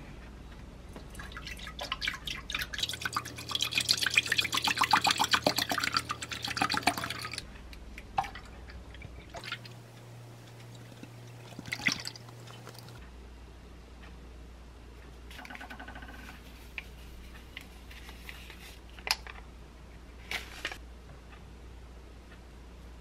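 Milk glugging and splashing as it is poured from a cardboard carton into a rice cooker's inner pot, loudest in the first several seconds, then a second, shorter pour. Near the end come a few light clicks and taps.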